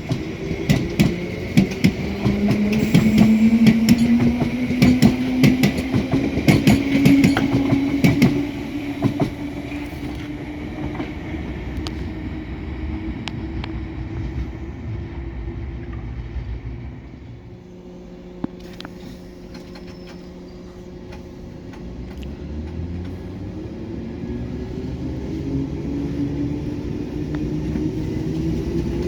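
London Underground 1972 Stock train's DC traction motors whining and rising in pitch as the train accelerates, with wheels clattering rapidly over the rails. The sound settles into a fading rumble, drops to a low steady hum about two-thirds of the way through, then another rising motor whine builds near the end.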